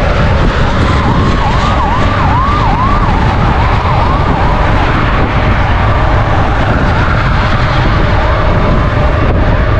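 Steady, loud wind and road rumble on the microphone of a moving scooter. Over it, a wailing siren-like tone swoops up and down about twice a second, clearest in the first half and fading later.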